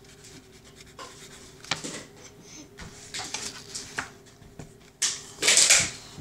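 Fingers rubbing and brushing over the paper page of a colouring book right against the microphone, in several short scratchy strokes, with the loudest and longest rustle near the end.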